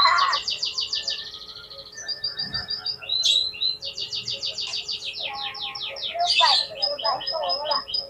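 Oriental magpie-robin (kacer) singing: fast runs of repeated high notes, about ten a second, each run lasting about a second and changing pitch from one to the next, with a lower warbling phrase in the second half.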